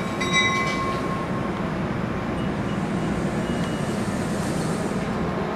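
NJ Transit Comet passenger coaches rolling past a station platform at speed, a steady rumble and rush of wheels on rail. In the first second there is also a brief high ringing tone.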